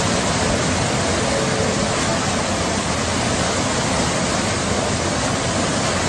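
Floodwater rushing as a torrent down a station staircase and escalators and across the concourse floor: a loud, steady roar of churning water that cuts off abruptly at the end.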